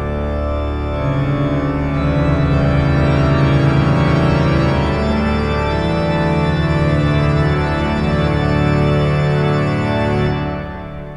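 Organ music playing slow, held chords that change every second or two, dropping in level near the end.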